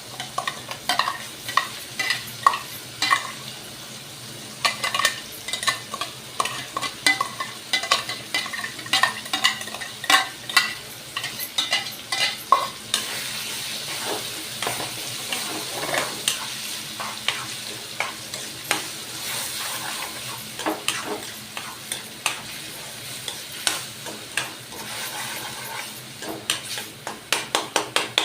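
Tomato puree frying and sizzling in hot oil and spices in a pan, stirred with a spoon that scrapes and taps against the pan. For about the first half the stirring strokes come fast and close together; then the sizzle runs on steadier with only occasional strokes, and quick strokes return near the end.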